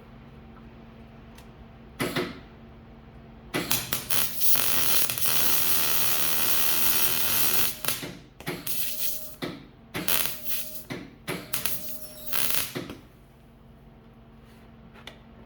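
MIG welder arc crackling on rusty exhaust metal, filling a tiny pinhole. A short blip comes about two seconds in, then a steady bead of about four seconds, then several short stop-start bursts.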